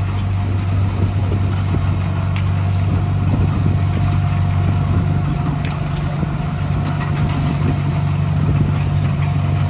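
Diesel engine of heavy construction machinery running steadily, with a thin steady whine above it and a few light clanks.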